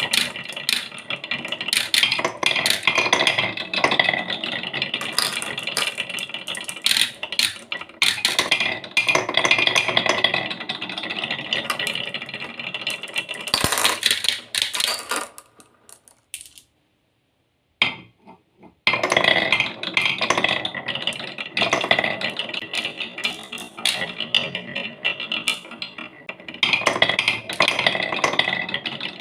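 Marbles rolling and clattering down a wooden HABA marble run, with many rapid clicks and knocks over a steady rolling rumble. It breaks off to near silence for a couple of seconds just past the middle, then resumes.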